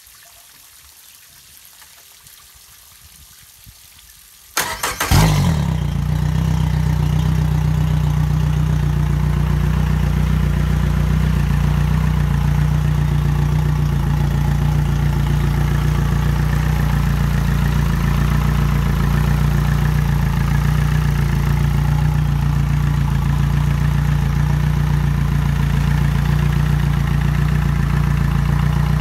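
A 2015 Yamaha F200 four-stroke outboard, an in-line four, is cranked briefly by its electric starter about four and a half seconds in. It catches within about half a second and settles into a steady idle. The cowling is off and the motor is running on a flushing hose.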